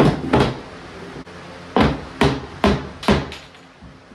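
Hammer striking a wooden kitchen cabinet box: two quick blows, then after a pause of about a second and a half, four more at a steady pace.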